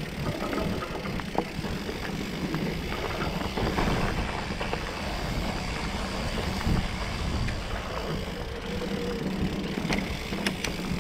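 Mountain bike rolling down a dirt singletrack: tyres on the loose trail and the bike rattling over roots and bumps, a steady rumble with scattered clicks and a few sharp knocks near the end, heard from a handlebar-mounted action camera.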